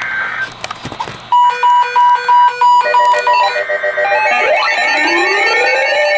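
Electronic alert tones ahead of an emergency weather warning: a run of short beeps, about three a second, then layered steady tones with repeated rising sweeps.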